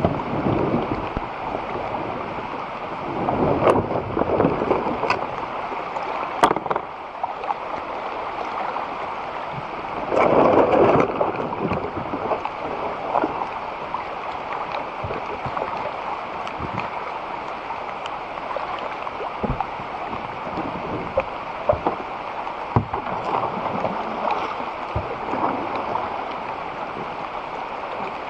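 Water rushing and splashing around a kayak moving down a creek, with louder swells of splashing three times and scattered light knocks.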